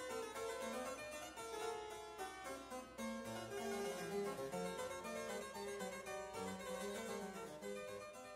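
Outro music, a harpsichord-like keyboard playing a busy run of short notes, fading out near the end.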